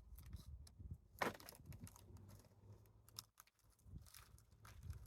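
Faint crackling and rustling of soil and sweet potato vines being dug through, with scattered small clicks and one sharper knock about a second in.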